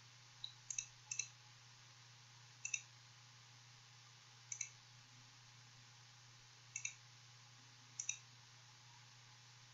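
Computer mouse button clicking about seven times at uneven intervals, each click a quick press-and-release double tick, over a faint steady low hum.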